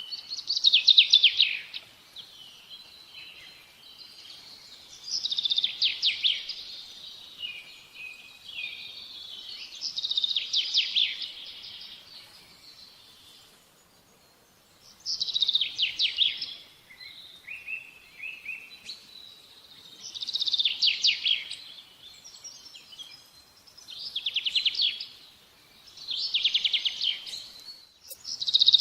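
A songbird singing: a phrase of rapid notes, falling in pitch, repeated about every five seconds, with softer twittering between the phrases.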